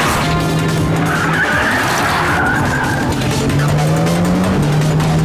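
Car engines revving hard and tyres screeching as cars speed past, with an engine note rising near the middle, over a bed of action music.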